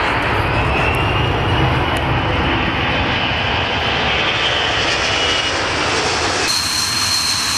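Boeing C-17 Globemaster III's four turbofan engines running loud on a low, slow pass with gear down: a heavy rumble and roar with a high whine above it. Near the end the sound cuts abruptly to a thinner, steady high-pitched whine.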